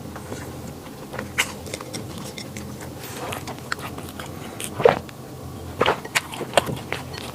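A person biting and chewing flaky pastry, with crisp crunches scattered irregularly, the loudest about five and six seconds in.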